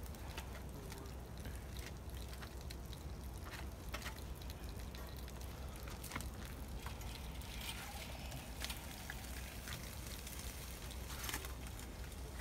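Open cooking fire crackling faintly: scattered sharp pops and crackles over a low steady rumble.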